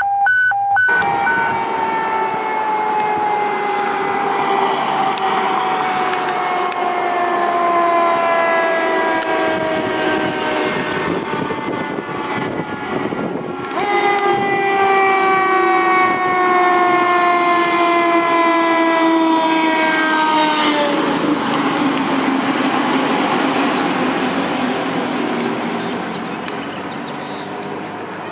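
Federal Q2B mechanical siren on a fire engine, wailing in a long, slow downward glide in pitch. About halfway through it is wound back up and glides down again. Near the end it drops lower and fades as the engine drives away.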